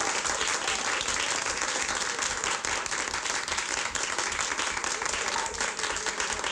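A group of people applauding, many hands clapping at once in a dense, steady patter.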